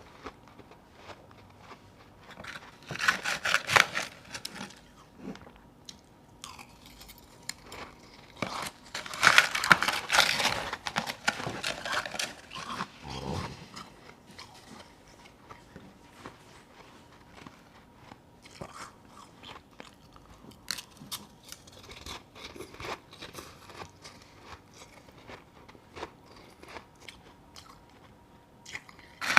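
Close-up crunching and chewing of powdery ice chunks. There are loud crunching bites about three seconds in and again from about nine to twelve seconds, with quieter chewing in between.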